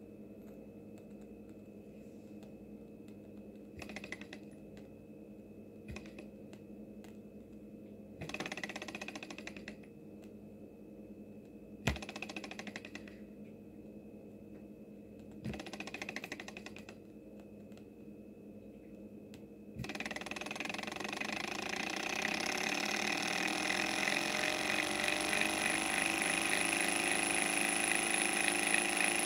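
Small flame-heated two-cylinder Stirling engine running: quiet at first with a few short rattling spells and a sharp click, then about two-thirds of the way in a fast mechanical clatter of its pistons and crank sets in and grows steadily louder as the engine speeds up.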